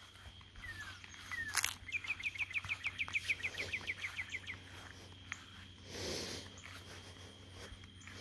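A bird calling in a rapid trill of short, downward-sliding chirps, about eight a second, lasting a couple of seconds, with a faint steady high tone underneath.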